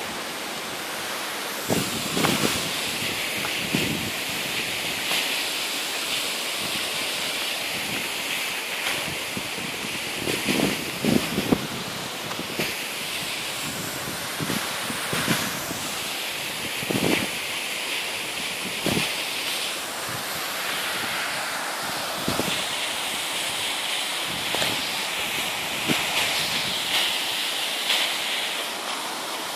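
Waterfall's steady rush of falling water, with occasional gusts of wind buffeting the microphone.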